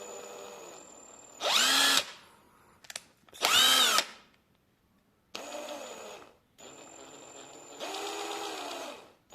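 Zubr GUL-401 cordless impact wrench motor run in four spurts on the variable-speed trigger: slower, quieter stretches and two short loud bursts at full speed, the whine rising and falling as the trigger is squeezed and eased. There is no hammering; the smooth speed control still works after four years of daily use.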